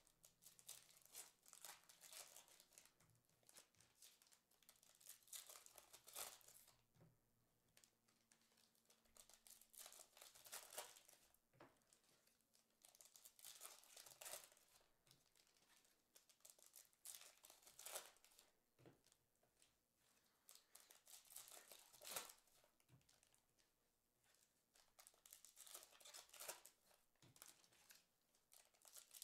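Foil trading card packs being torn open and crinkled by hand, with faint repeated bursts of crinkling and tearing foil.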